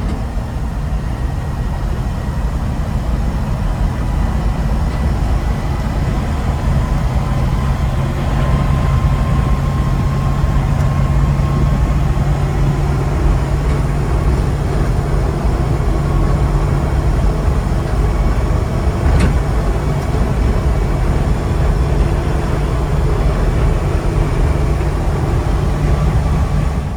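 V8-engined Land Rover Series III driving on the road, its engine running in a steady low drone under road noise.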